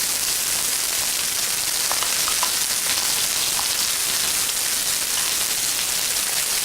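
Onion frying in hot garlic-infused oil in an electric wok, a steady loud sizzle with a few faint ticks about two to three and a half seconds in.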